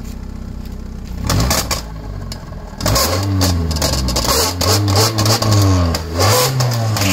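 Car engine heard at the tailpipe, which is fitted with a homemade coffee-cup exhaust tip. It idles steadily, is blipped once about a second in, then is revved several times from about three seconds in, the pitch rising and falling with each rev.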